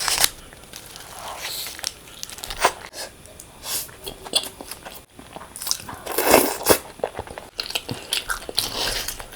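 Close-miked eating: irregular crunchy bites and chewing, with the loudest, longest crunch about six seconds in.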